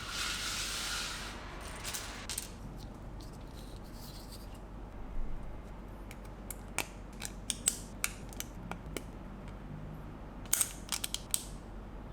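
Small plastic building bricks being handled and snapped together: a short rustle at the start, then scattered sharp clicks, with a quick run of clicks near the end.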